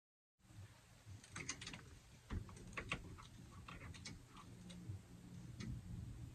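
Total silence at first, then faint scattered clicks and light rattles of plastic hangers knocking and sliding along a wire closet rail as clothes are pushed aside.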